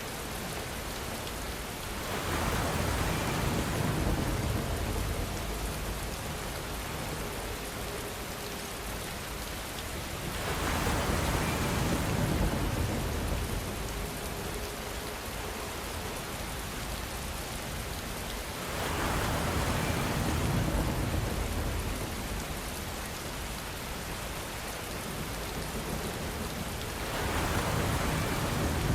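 Steady rain falling, swelling louder for a few seconds about every eight seconds, four times, with a deeper rumble in each swell.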